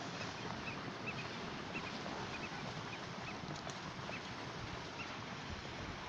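A large flock of waterbirds taking off and flying low over water: a steady rush of wingbeats and splashing, with many short high calls scattered through.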